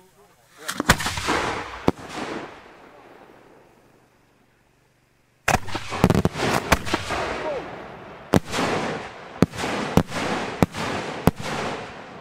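Large aerial firework shells bursting: a few sharp bangs about a second in, trailed by a hiss that fades away. From about five and a half seconds on comes a rapid string of bangs, roughly one every half second to a second.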